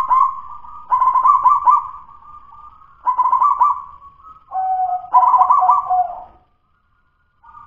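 Zebra dove (perkutut) singing: four phrases, each a quick run of short staccato coos, with a short pause between phrases and silence near the end. Its song is still halting and not yet fluent, typical of a local wild-caught bird not yet settled into full song.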